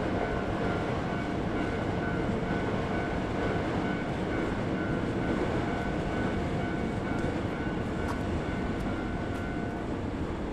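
Hankyu electric train running past at a level crossing: a steady rumble with a few held tones, which drop away near the end.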